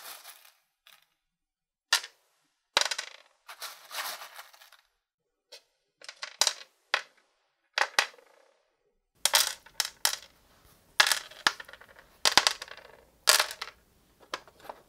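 Small pebbles handled on a wooden board: a dozen or so sharp clicks and short rattles, with gaps between them, as stones are picked up and dropped onto the wood.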